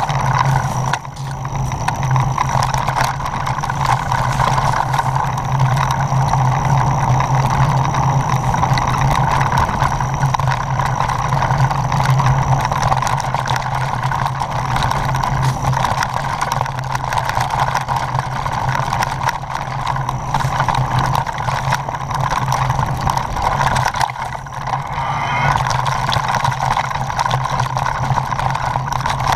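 Mountain bike rolling down a rocky, gravelly singletrack: continuous tyre and drivetrain noise with wind rush, heard from a handlebar-mounted camera, steady throughout.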